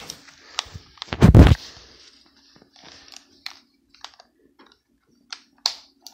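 Handling noise: a loud thump about a second in, then a few light clicks spread out over the rest, with a faint steady hum underneath.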